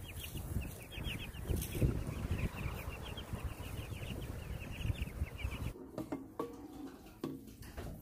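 Cornish cross meat chicks peeping continuously, many quick high calls overlapping; the peeping cuts off about six seconds in.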